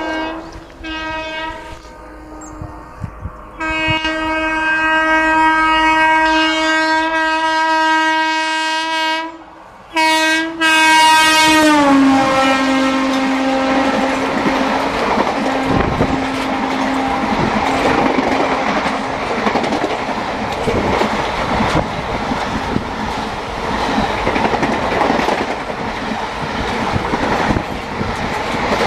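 Train horn on the locomotive of a superfast express sounding a short blast, then a long blast of about six seconds, then another whose pitch drops as the engine passes. The coaches then rush by at full speed, with loud rushing noise and fast clatter of wheels over the rail joints.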